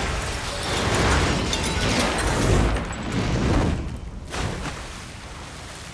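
Explosion on a warship's deck: a blast rumbling on in rolling booms that swell a few times, then dying down to a lower rumble after about four seconds.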